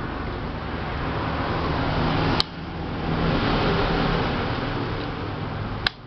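A tower fan's small electric motor humming under power with a rushing noise that swells. Twice, about two and a half seconds in and again near the end, it is cut by a sharp click and a sudden drop. The motor gets current and hums but fails to drive the fan properly.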